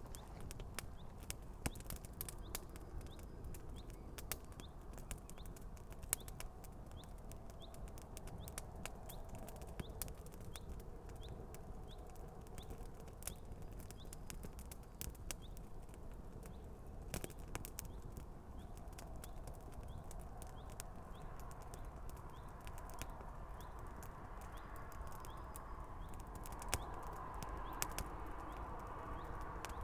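Campfire with shoes burning on it, crackling and popping with sharp irregular snaps over a low rumble; about two-thirds of the way in a hiss rises and grows louder.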